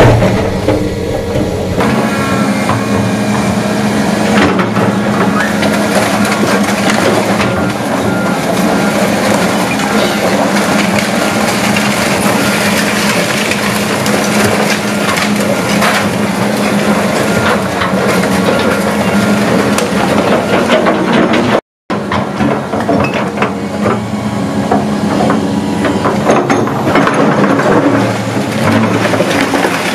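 Volvo tracked excavator's diesel engine running steadily under load while its bucket breaks down a brick wall and rakes through the rubble. Bricks and debris crash, crunch and clatter throughout.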